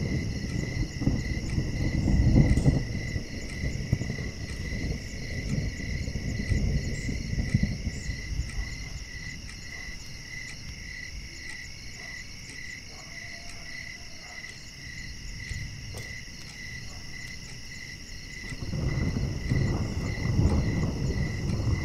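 Crickets chirping: a steady, high, pulsing trill that keeps up without a break. Under it a low rumble is strong in the first few seconds, fades in the middle, and comes back near the end.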